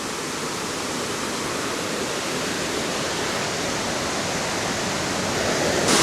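Big waterfall plunging over a high drop, a steady rushing roar of falling water that grows louder and brighter near the end.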